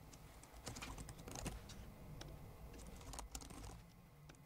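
Faint, irregular typing on a computer keyboard: single keystrokes and short runs of key clicks.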